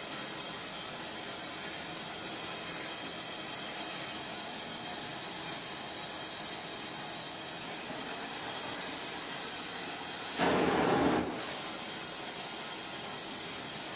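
Gas torch flame hissing steadily as bronze is heated for a hot patina, with a brief louder rush of noise about ten seconds in.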